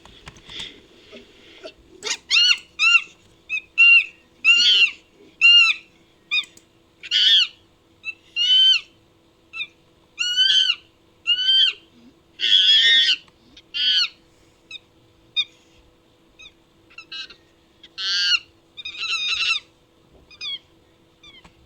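Chimpanzee-based creature calls: a long series of high-pitched hoots and shrieks, each rising then falling in pitch, one or two a second.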